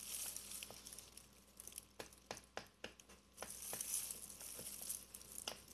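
Faint scattered clicks and light rustling from small plastic bottles and packaging being handled.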